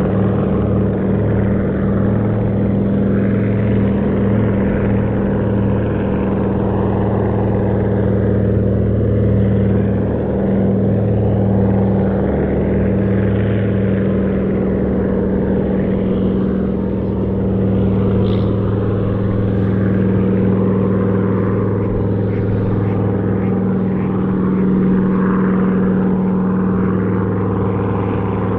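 A Consolidated PBY Catalina flying boat's two Pratt & Whitney R-1830 Twin Wasp radial engines running at take-off power as the boat races across the water on its take-off run. The sound is a steady drone that throbs slightly at times.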